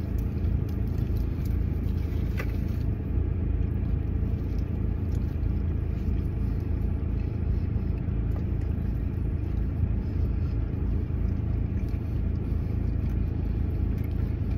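Steady low rumble inside a car's cabin.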